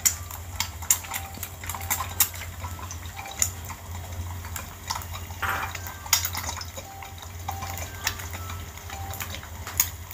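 Eggs poaching in a nonstick pan of simmering water, bubbling with irregular sharp pops and crackles, over a steady low hum.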